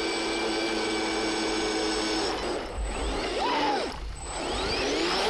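RC boat's electric drive motors spinning 3D-printed screw propellers, a steady high whine for about two seconds, then sweeping up and down in pitch twice.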